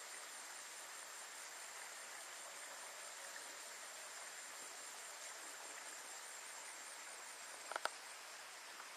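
Faint, steady outdoor background hiss with no calls, broken by a quick cluster of two or three sharp clicks about eight seconds in.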